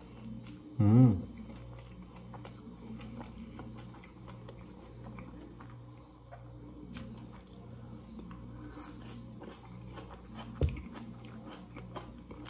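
Close-up chewing and biting of sun-dried beef and rice, with small wet mouth clicks and smacks over a low steady hum. About a second in comes a brief, loud voice-like sound, and near the end a single thump.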